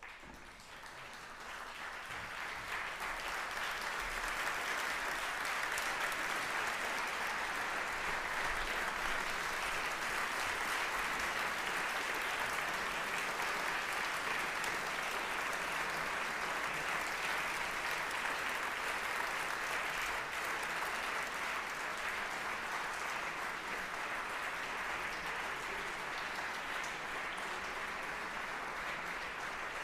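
Audience applauding, swelling over the first few seconds after the music ends and then holding at a steady level.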